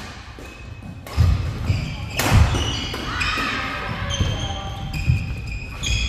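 Badminton rally on an indoor court: two sharp racket strikes on the shuttlecock about a second apart, with thudding footsteps. From about halfway, shoes squeak repeatedly on the court floor.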